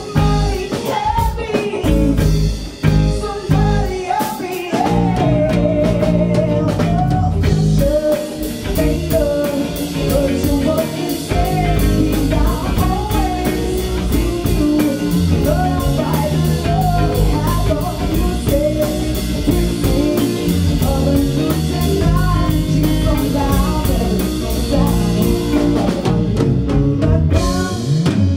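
Live blues-rock band playing: a woman singing over electric guitars and a drum kit, with a steady cymbal beat coming in after several seconds.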